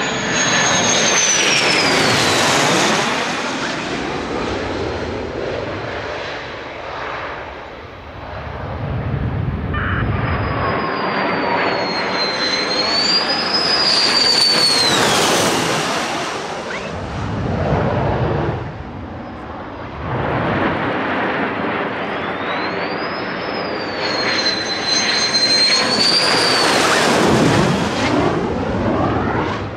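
F-16 fighter jets going low overhead one after another, three passes, each a loud jet engine rush. Each pass carries a high whine that climbs and then drops in pitch as the jet goes by.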